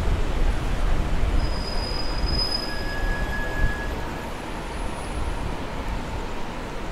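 Low, steady rumble of city traffic with a noisy hiss. About a second and a half in comes a thin, high-pitched squeal lasting over a second, and a lower squeal follows just after it.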